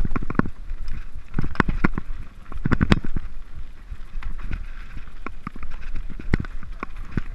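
Mountain bike rolling over rocky singletrack: irregular knocks and rattles from the wheels and frame striking stones, over a steady low wind rumble on the microphone.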